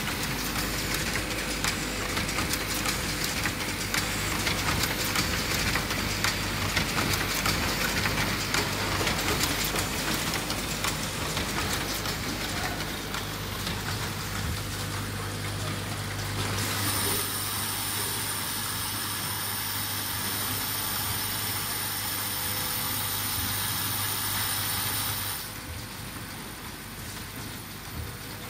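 Automatic garment-hanger clip assembly machine running, its vibratory bowl feeders full of plastic and metal clips: a steady hum under a dense patter of small rattling clicks. About halfway through, the hum drops out and a high steady whine comes in. The whole sound gets quieter a few seconds before the end.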